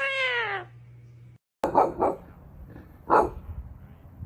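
A dog barking: a pair of short barks just after the cut and a single bark about a second later, preceded at the very start by one long cry that falls in pitch.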